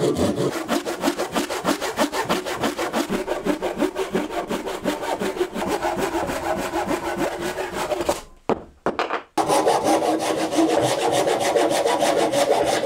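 Pull saw cutting through a block of oak in quick, even strokes, about five a second, with a short break about eight seconds in before the sawing resumes.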